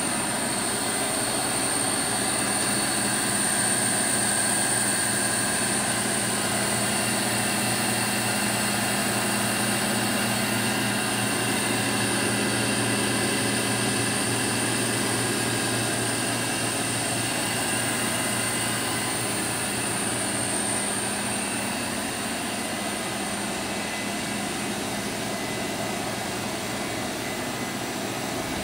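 Kitamura Mycenter 1 vertical machining center running: a steady machine hum with a high-pitched whine, easing off slightly in the last few seconds.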